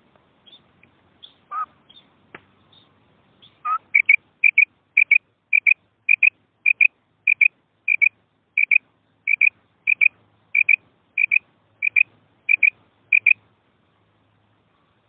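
Female quail calling: a few faint scattered notes, then a long, evenly paced series of short, high double notes, nearly two a second, which stops near the end.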